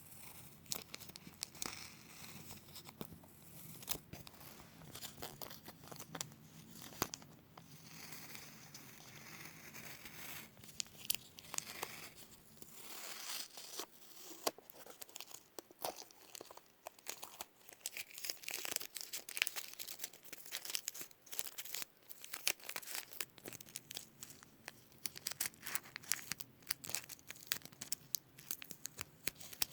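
Adhesive tape being peeled slowly off a surface, a crackling, ripping stream of small sharp clicks, with sticky tapping in between.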